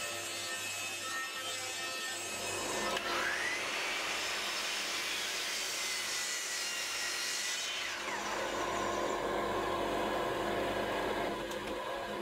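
Table saw ripping a 12 mm plywood strip, then a sliding mitre saw crosscutting plywood. The mitre saw's pitch rises about three seconds in as it spins up and falls near eight seconds as it winds down.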